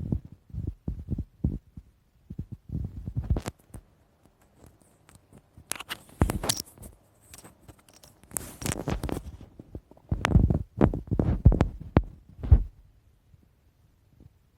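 Human stomach growling and gurgling: irregular clusters of low rumbles and bubbly gurgles that come and go, dying away about two seconds before the end.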